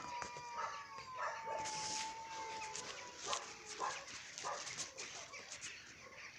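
Domestic cat yowling during a standoff fight: one long drawn-out howl held for about two and a half seconds, sagging slightly in pitch, followed by shorter cries.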